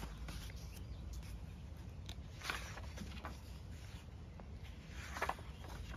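Paper pages of a Dingbats notebook being turned by hand, with small rustles and ticks and two louder page flips about two and a half and five seconds in, over a low steady background rumble.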